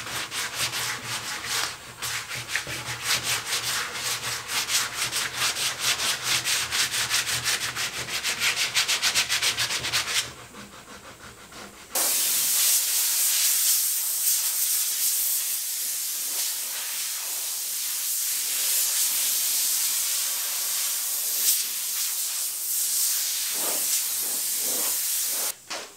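Sandpaper rubbed by hand over a carved wooden log-bench seat in quick, rhythmic back-and-forth strokes, sanding highlights into the carving. About twelve seconds in it changes to a steadier, hissier rubbing.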